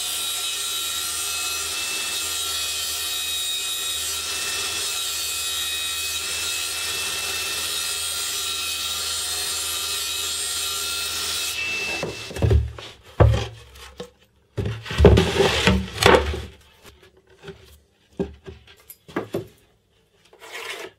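Table saw cutting through a plywood panel: a steady saw noise with a few high tones in it, which stops abruptly about twelve seconds in. After that comes a run of irregular knocks and thumps.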